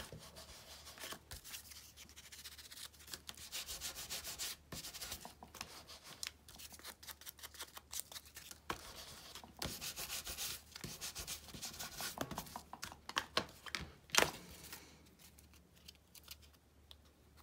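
Ink blending tool rubbed in quick, scratchy scrubbing strokes over the edges of a small piece of cardstock, distressing it with Distress Oxide ink. About fourteen seconds in, a sharp click as the plastic ink pad's lid is snapped shut.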